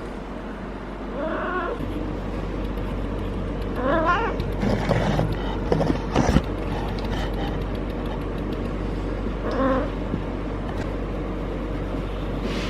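Female cat in heat caterwauling: three drawn-out yowls that bend in pitch, about a second in, around four seconds in (the loudest), and near ten seconds in. Rustling and a sharp knock come between the second and third calls.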